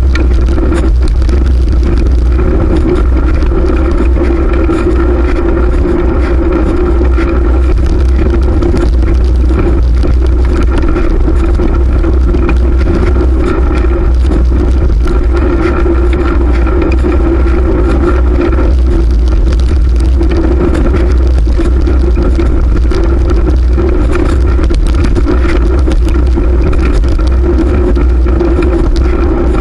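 Riding a fixed-gear bicycle: steady, loud wind rush on the microphone with road and tyre noise, a heavy low rumble under a constant hum.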